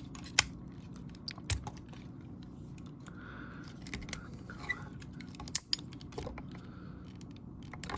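Irregular small clicks and taps of hard plastic parts of a Transformers Masterpiece Movie Ratchet figure being handled and pressed, as a piece is forced to tab in. The sharpest clicks come about half a second, a second and a half and five and a half seconds in.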